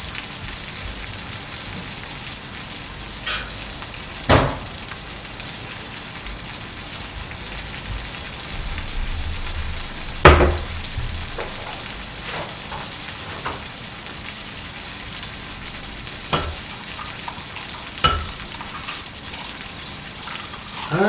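Pajeon batter with green onions and seafood frying in a pan, a steady sizzling hiss. A few sharp knocks of a bowl and utensils cut through it, the loudest about ten seconds in.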